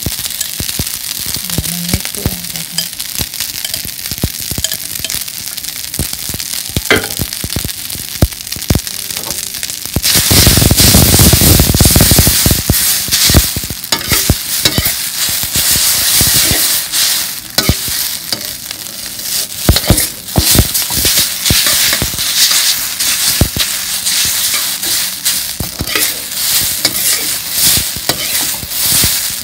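Plain boiled spaghetti stir-frying in a hot, blackened wok: steady sizzling with frequent clicks and scrapes of a metal utensil tossing the noodles against the wok, growing much louder about ten seconds in. The noodles are being fried dry to scorch them for a smoky wok flavour.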